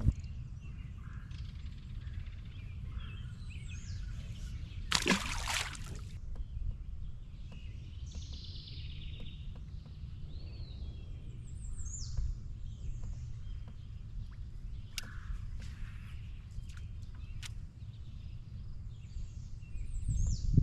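Outdoor ambience with a steady low rumble and birds chirping, including short downward-sweeping calls. One brief, louder noisy sound comes about five seconds in.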